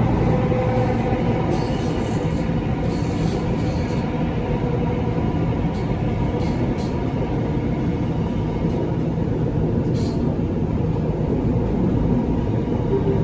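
Singapore Downtown Line MRT train running between stations, heard from inside the carriage: a steady rumble of wheels and traction motors with a faint whine.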